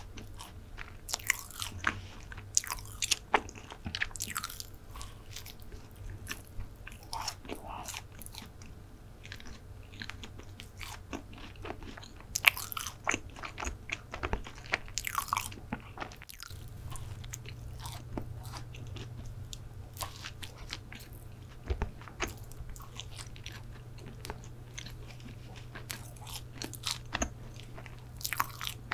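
Close-miked biting and chewing of a soft chocolate brownie: many short, moist clicks and smacks of the mouth and teeth working through it. A steady low hum runs underneath and grows louder about halfway through.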